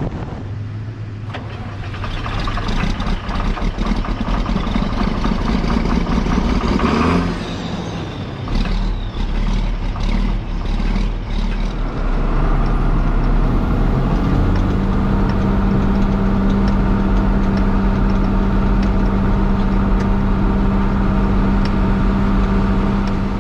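Farm tractor engine running. Around seven seconds in the sound dips and changes, and from about twelve seconds on it holds a steady, even hum.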